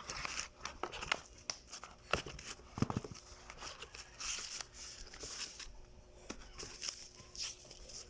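Packaging being handled and opened by hand: a run of rustles, crinkles and small clicks, with a louder knock about three seconds in.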